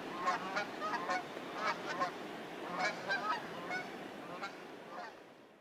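A flock of geese flying overhead, honking over and over in overlapping calls that fade away near the end.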